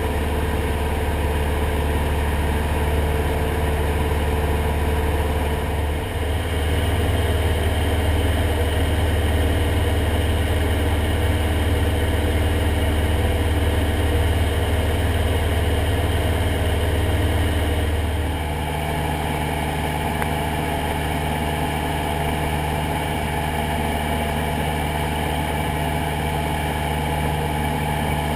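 Cessna 172SP's Lycoming IO-360 four-cylinder piston engine and propeller running steadily. About eighteen seconds in the engine note changes and settles at a new steady pitch.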